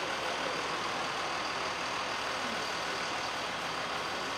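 A large coach bus idling close by: a steady, even engine drone.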